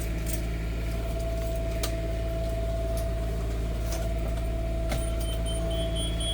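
An engine running steadily: a low, even hum with a constant whine above it and a few light clicks.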